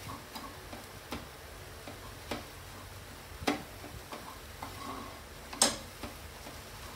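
Spatula tapping and scraping against a nonstick frying pan while stirring grated apple that has cooked down dry: five sharp, irregular knocks, the loudest near the end, over a faint steady background.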